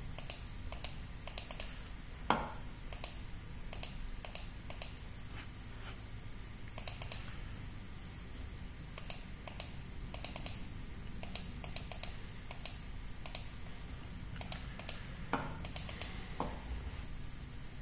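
Computer keyboard keys and clicks tapped irregularly, singly or in short quick runs with pauses between.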